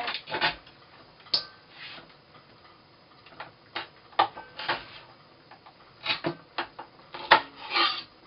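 Kitchen knife cutting the nail tips off raw chicken feet on a wooden cutting board: irregular sharp knocks of the blade hitting the board.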